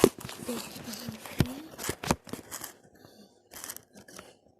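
Hands handling things close to the microphone: a run of knocks, clicks and plastic crinkling, busy for about two seconds and then sparser.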